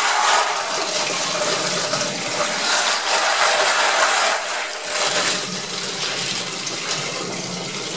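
Hot water running from a faucet into a plastic tub of .223 brass cartridge cases, the cases clinking and rattling against each other as they are swirled to rinse out the soap. The tub is tipped to drain after about five seconds.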